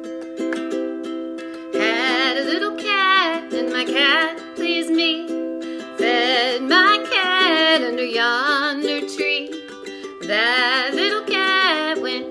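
Ukulele strumming a chord accompaniment, joined about two seconds in by a woman singing a children's folk song in three phrases with a wavering vibrato.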